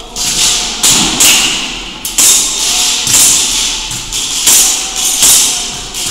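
Tokyo Marui Hi-Capa 5.1 gas blowback airsoft pistol firing about six sharp shots at an uneven pace, each with a short echo off the hall.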